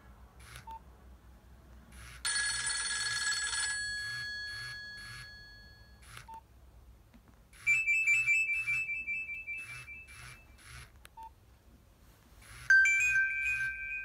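Nokia 2720 fold ringtone previews played through the phone's small speaker while scrolling the ringtone list: three different electronic melodies start in turn, about two, eight and thirteen seconds in, each preceded by a short keypad beep. The first is bright and bell-like and dies away over a few seconds.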